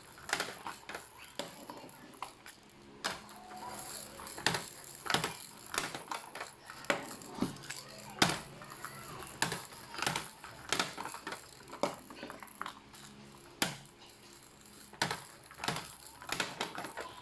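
Balls rolling and dropping through an infant ball-drop marble-run toy, making irregular clicks and clattering knocks, about one or two a second.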